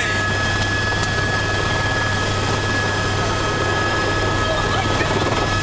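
Helicopter heard from inside its cabin: a steady, loud drone of engine and rotor with a high, steady whine over it.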